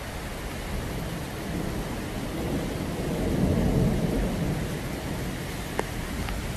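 Steady rushing outdoor noise, with a low rumble that swells up about two and a half seconds in and fades away again, and a sharp click near the end.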